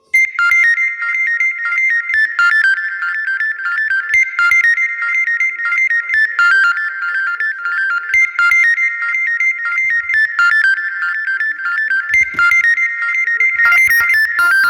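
Synthesized ringtone melody previewing on a Samsung Galaxy A31: a bright, bell-like figure of high notes that repeats about every two seconds.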